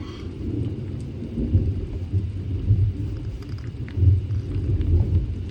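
Severe thunderstorm: a continuous low rumble of thunder and gusting wind that swells and fades unevenly, over a faint hiss of heavy rain.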